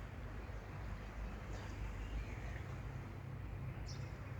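Quiet outdoor background with a steady low rumble, broken by two brief high chirps, one about a second and a half in and one near the end.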